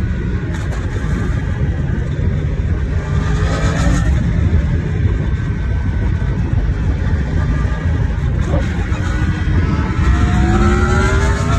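Yamaha MT-10's crossplane-crank inline-four engine running under a rider, rising in pitch as it accelerates about three seconds in and again near the end, with steadier running in between.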